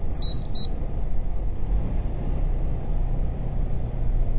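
Truck cab noise picked up by a dashcam microphone: a steady low engine drone and road rumble at crawling speed. Two short high beeps about half a second apart come just after the start.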